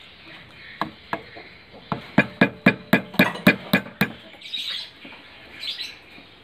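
Wooden mallet tapping a carving chisel into the wooden hilt of a mandau: a few scattered knocks, then a run of about eight sharp strikes at roughly four a second, followed by high chirps.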